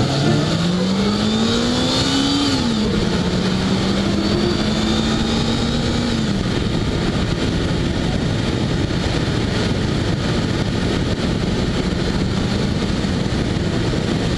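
Peugeot 206 engine accelerating, heard from a camera taped to its front bumper under heavy wind and road noise. The engine note climbs, drops sharply about two and a half seconds in as the gear is changed up, climbs slowly again, then falls away into the road noise about six seconds in.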